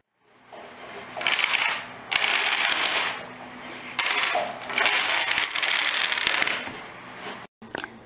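A row of dominoes toppling in a chain across a wooden table, a rapid clatter of clicks. It comes in two runs of about two seconds each.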